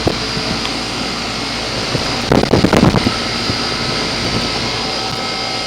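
2004 Goodman 10 SEER 3.5-ton heat pump outdoor unit running steadily in cooling mode in hot weather: the compressor and condenser fan give a steady whir and hum. About two and a half seconds in, a brief louder burst of noise cuts across it.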